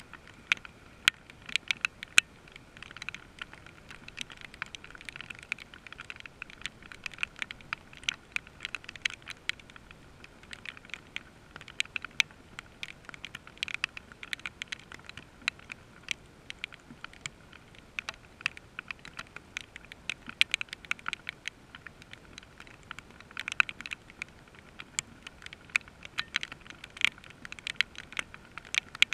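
Rain: raindrops striking close to the microphone in many irregular sharp taps, over a faint hiss of rainfall.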